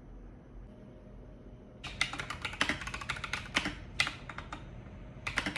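Rapid typing on an Akko 3108 RF mechanical keyboard: fast clacking keystrokes. They start about two seconds in, pause briefly, and resume near the end.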